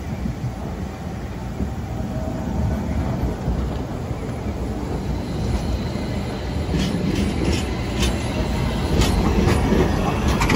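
Street trams running on track set in the road: a low rumble that slowly grows louder, with a run of sharp wheel clacks over rail joints starting a little past halfway, as an older tram passes close near the end.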